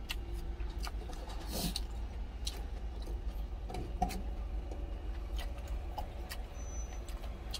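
Chewing with scattered light clicks of stainless steel chopsticks against a stainless steel lunch tin, over a steady low hum.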